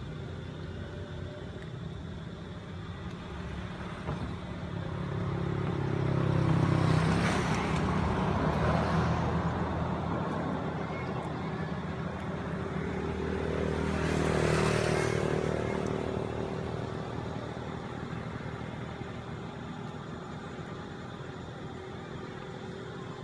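Motor vehicles passing on a nearby road: two passes, each engine growing louder and then fading, the first peaking about seven seconds in and the second about fourteen seconds in, over a steady low hum of traffic.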